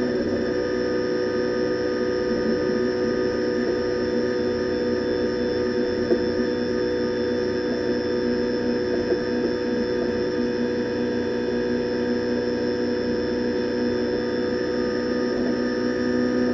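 Renault Clio Cup race car's four-cylinder engine heard from inside the cockpit, droning at steady high revs under full throttle in sixth gear, with wind and road noise. Two brief knocks come about six and nine seconds in.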